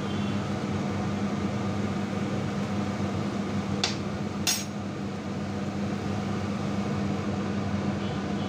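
Grated carrots frying in ghee in a kadai, a steady hiss over a constant low hum. About four seconds in there are two sharp metal clicks of a utensil against the pan, half a second apart.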